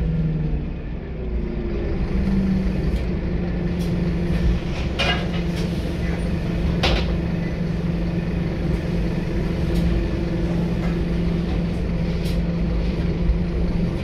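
A Scania K230UB single-deck bus's engine, heard from inside the rear of the bus. Its pitch falls away over the first second or so, then holds steady. Two sharp knocks or rattles come about five and seven seconds in.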